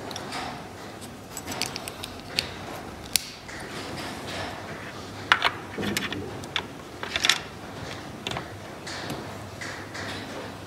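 Small wooden toy parts being handled: scattered sharp clicks and knocks, loudest in two quick clusters about five and seven seconds in.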